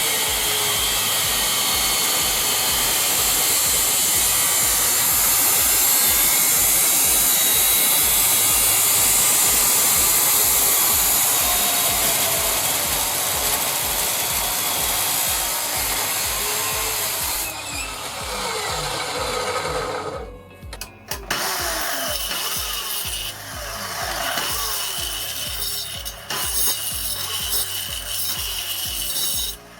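Power miter saw, being converted into a cut-off saw, running and cutting with a loud steady noise that stops about two-thirds of the way through, followed by falling tones and quieter handling sounds. Upbeat background music plays underneath throughout.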